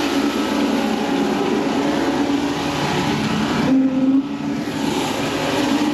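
Gas pressure washer running steadily, its engine under the hiss of the high-pressure spray on concrete; the spray hiss drops out briefly about four seconds in.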